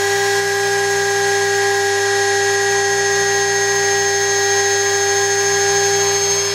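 2.2 kW Chinese water-cooled spindle motor running at full speed, 24,000 rpm on a 400 Hz inverter drive, with a steady whine.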